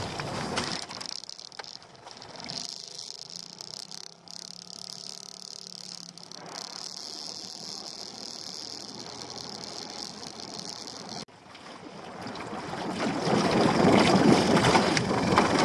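Small dinghy under way: the outboard motor runs steadily with wind and water rushing past. After a brief drop-out about eleven seconds in, the rush of wind and water builds and becomes much louder.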